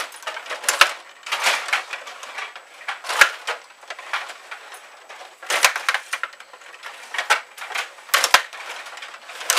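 Rod hockey table in play: the rods and plastic players rattling and clacking as they are spun and slid, with the puck knocking about. The bursts come irregularly, with a few sharp knocks among them.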